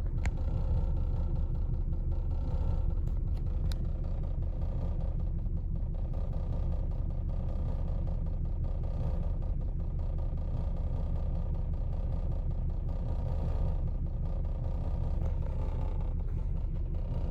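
1999 Lexus RX 300's 3.0-litre V6 idling roughly in drive with a steady low rumble: a misfire on cylinder 6 that the owner puts down to a bad ignition coil.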